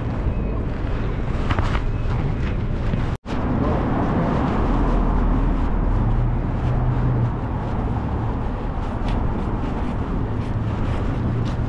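City street noise: a steady rumble of road traffic, cutting out completely for an instant about three seconds in.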